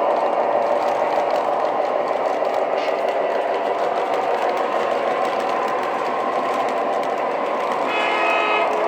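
Lionel TMCC C420 O-gauge model diesel locomotive running steadily on the track: motor whir and wheel noise mixed with its sound system's diesel engine. A brief steady tone sounds near the end.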